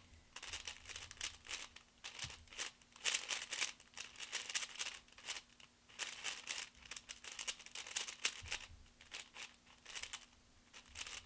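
QiYi WuQue 4x4 speed cube being turned fast: runs of rapid plastic clicking and whooshing from the layers sliding, with short pauses between sequences. The turning is whooshy, fast and smooth rather than sandy.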